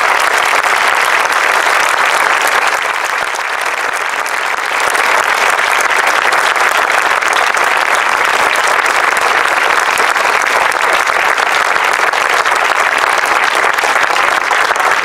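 A crowd applauding steadily.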